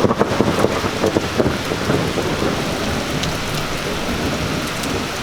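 Heavy rain falling steadily, with thunder rumbling underneath, a little louder in the first second or so, after a close lightning strike.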